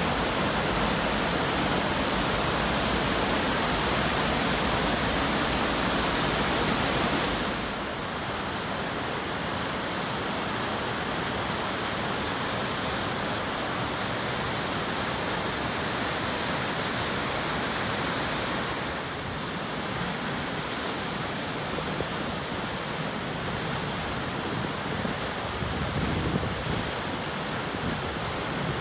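Steady roar of the McCloud River waterfalls and rushing whitewater. The rush changes in tone at two cuts, losing some of its hiss about a quarter of the way in and shifting again about two-thirds of the way in.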